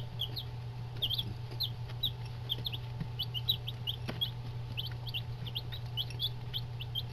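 A brood of 8-day-old Buff Orpington and Barred Rock chicks peeping: a steady stream of short, high, overlapping chirps over a steady low hum, with a few faint taps.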